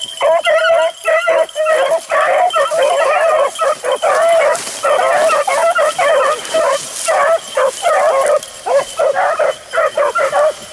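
A pack of beagles baying and yelping in a continuous, overlapping chorus as they run a rabbit's trail.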